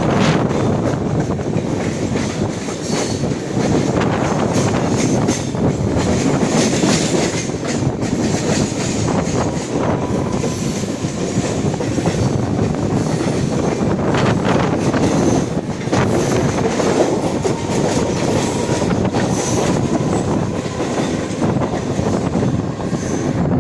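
Train running at speed on the track: a steady rumble and rattle of wheels on rail with clickety-clack over the rail joints, and a faint thin wheel squeal at times.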